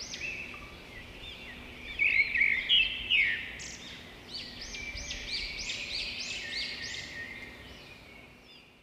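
Birds chirping, many quick high calls overlapping, loudest a couple of seconds in and fading out near the end.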